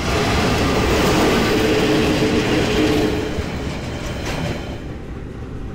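KiwiRail diesel locomotive passing close by. It is loudest for about three seconds, with a steady double tone over the noise of the passing locomotive, then eases off.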